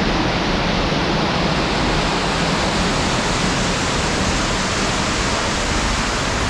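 Waterfall pouring down at a cave entrance: a heavy, steady rush of falling water.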